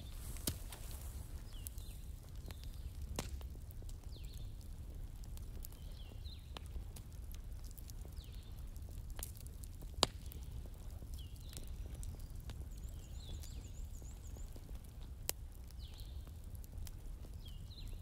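Crackling wood fire: a steady low rumble with scattered sharp pops, the loudest about ten seconds in.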